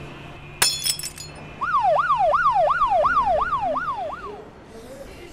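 Emergency vehicle siren in a fast yelp, its pitch sweeping up and down about three times a second for nearly three seconds, then fading out. A brief sharp burst comes just before it.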